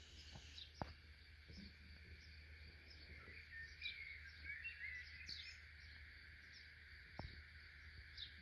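Near silence: faint outdoor ambience with a steady low background rumble and faint, distant bird chirps, busiest a few seconds in, plus two soft clicks.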